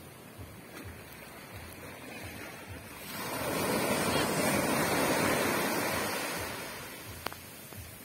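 Small sea waves lapping on a sandy beach. About three seconds in, a wave breaks at the shore and its surf rushes up the sand, swelling louder, then fades away over the next few seconds.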